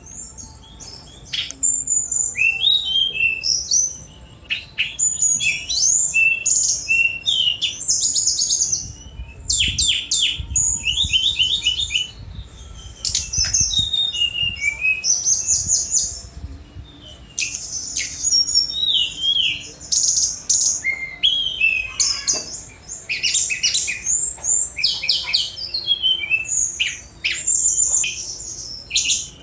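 Tledekan gunung (sikatan rimba dada coklat) in full, fast song: rapid, varied high chirps, sweeping whistles and quick rattling trills, delivered in busy phrases broken by short pauses.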